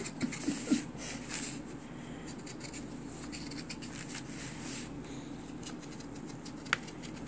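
Sharpie King Size permanent marker drawn across felt, a faint run of short scratchy strokes; a single sharp click near the end.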